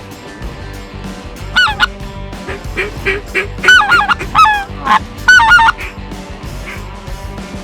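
Goose calling: three bursts of loud, high honks that swoop up and down in pitch, about one and a half, three and a half and five seconds in, with fainter lower calls between them.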